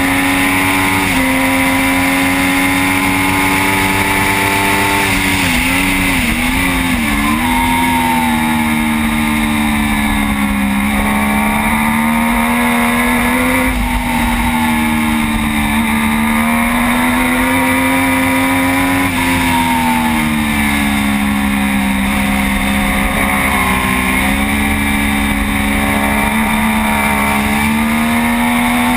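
Triumph Daytona 675 inline-three racing engine heard from onboard at speed, its pitch rising and falling with throttle and gear changes through the corners, with a quick wavering of pitch about six seconds in.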